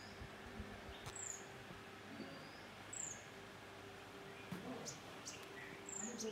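Birds calling in trees: a short, high chirp that slides downward, repeated every second or two, with a few other faint chirps between. A faint steady hum runs underneath.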